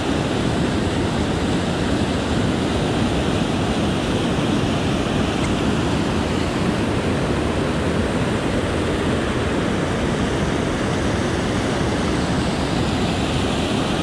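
Whitewater pouring over a rock ledge at a small river waterfall, heard up close: a steady, loud rush of water.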